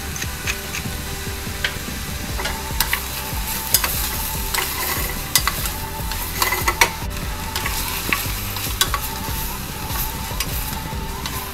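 Diced vegetables sizzling in olive oil in a stainless steel saucepan while a wooden spoon stirs them, with scattered light knocks and clicks of the spoon against the pan.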